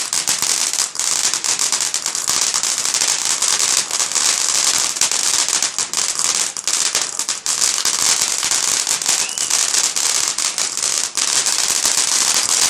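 Fireworks crackling densely and without a break, a rapid hiss of many small pops.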